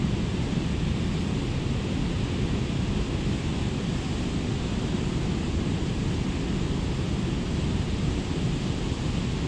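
Steady rushing of a fast-flowing river, with wind rumbling on the microphone.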